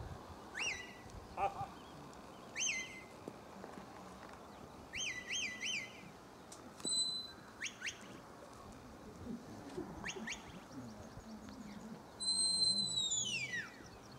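A shepherd's whistle commands to working border collies: a string of short, sharp whistles, some rising and some falling, with a quick run of three about five seconds in. Near the end comes a long, high whistle that drops in pitch. Each dog has its own set of whistle signals.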